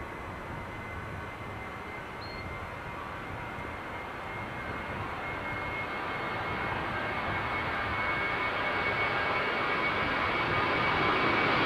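Airbus A320 jet engines with a steady high whine, growing steadily louder as the airliner approaches.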